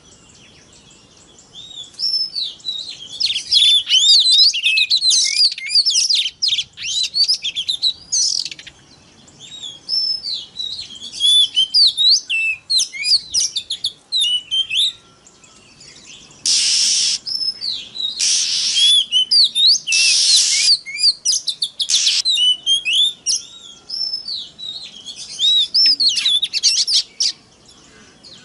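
Oriental magpie-robin (kacer) singing a fast, varied song of high sweeping whistles and chirps in bursts with short pauses. Three harsh, hissing notes come about midway.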